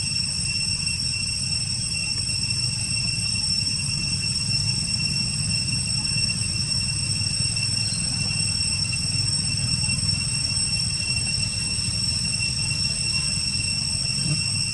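Steady low rumble under a constant high-pitched whine with overtones, unchanging throughout.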